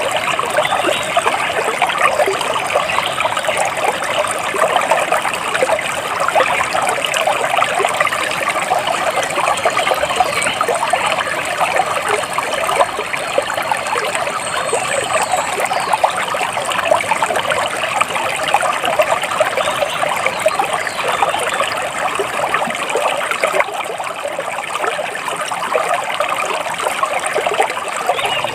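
Water trickling and splashing steadily, as in a small stream. A faint high bird chirp comes about halfway through.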